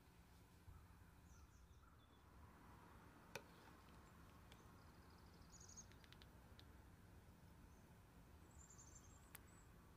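Near silence: a faint low hum with a few faint high chirps now and then, and two faint clicks, one about a third of the way in and one near the end.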